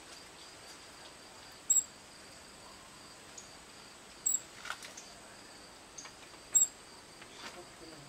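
Ruby-throated hummingbird fledgling giving short, high chip calls, three in all about two and a half seconds apart, over a faint steady insect drone. These are the calls of a grounded fledgling waiting for its mother.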